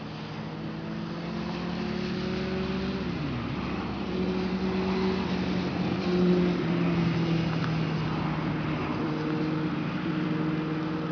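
A motor vehicle's engine running and growing louder. Its pitch dips sharply and comes back up about three seconds in, then holds steady.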